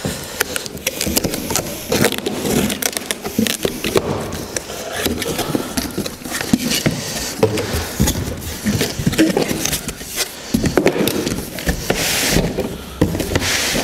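Cardboard carton being opened and handled by hand: flaps scraped and bent back, cardboard crackling, with scattered knocks as the parts packed inside are moved about.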